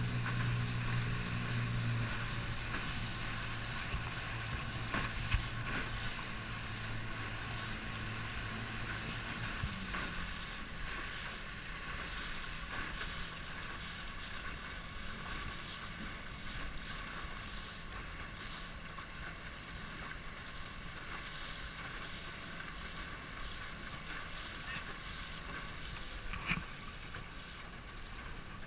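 Water rushing and splashing along the hull of a small boat under way on choppy water, with wind on the microphone. A low hum is loud in the first couple of seconds and fades away by about ten seconds in, and a few light knocks are heard.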